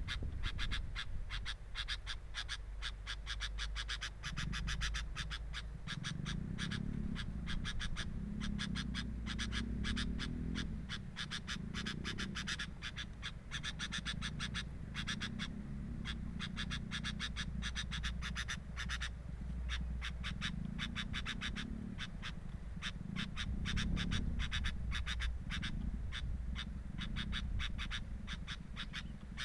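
A dense chorus of rapid, clicking animal calls, frog-like in character, with low rumbles coming and going underneath.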